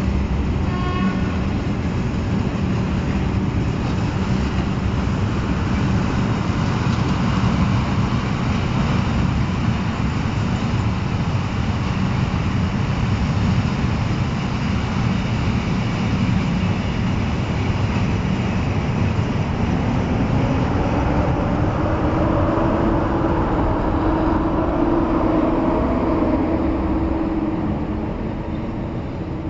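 EP07 electric locomotive hauling a passenger train pulling slowly out along the platform: a steady loud running noise of the locomotive and its wheels on the rails, with coaches rolling past near the end. A tone rises in pitch from about two-thirds of the way through as the train gathers speed.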